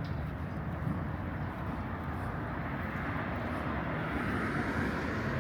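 Street traffic: a steady vehicle rumble that grows louder from about halfway through.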